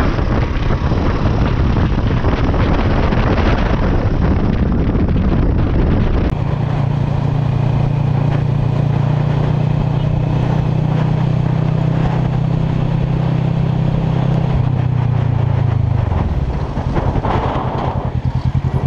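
Motorcycle riding with wind noise on the microphone for the first six seconds. After a cut, a second motorcycle's engine runs at steady cruising revs. Its pitch drops about sixteen seconds in as the rider slows down, and it ends in an even throbbing pulse.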